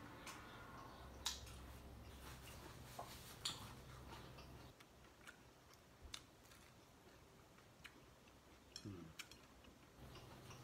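Quiet eating sounds: a scattered handful of faint, sharp, irregular clicks from eating noodles with chopsticks out of a glass bowl, over a low hum that fades out midway and comes back near the end.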